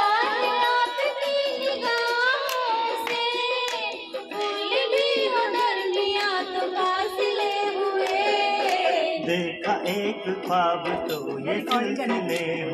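A woman singing a Hindi song into a handheld karaoke microphone over backing music, in long held notes, with sharp clicks throughout. About nine seconds in, the music gets fuller and lower.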